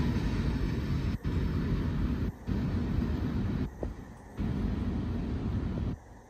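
CSX manifest freight train's cars rolling away into the distance, a low steady rumble that drops out abruptly four times.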